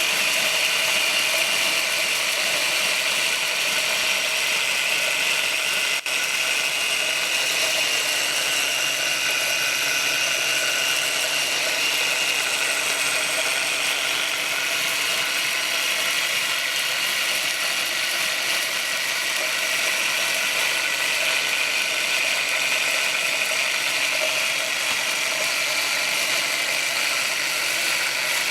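Suhner grinder running steadily, a continuous high mechanical whirring noise.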